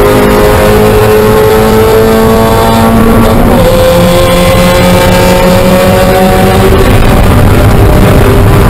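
Spec Miata's four-cylinder engine at full throttle near 6000 rpm, heard from inside the cockpit: it pulls in third, drops in pitch with an upshift to fourth about three and a half seconds in, then climbs steadily again, over wind and road noise.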